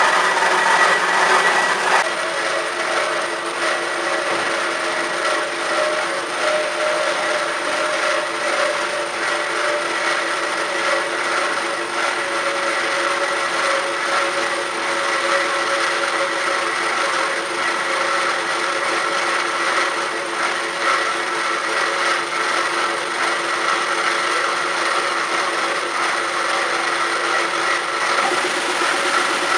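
CORMAK S-280R semi-automatic metal-cutting band saw running steadily, its blade rasping through metal stock. The tone shifts slightly about two seconds in.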